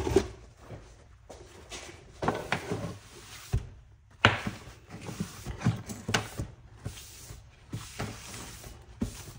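Handling noise on a workbench: irregular knocks and thunks as tools and objects are set down and moved, with the rustle of a cloth wiping the bench top between them.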